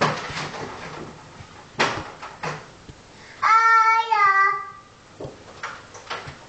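A toddler singing one loud held note, about a second long, that slides down in pitch at its end, about three and a half seconds in. Scattered knocks and taps come before and after it.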